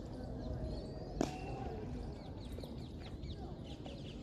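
One sharp crack about a second in, over constant chirping of small birds and a low murmur of distant voices.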